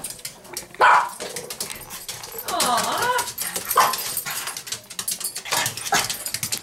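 Dog barking several short barks, with a longer wavering whine about two to three seconds in, begging for a treat. Light clicking and rustling runs underneath.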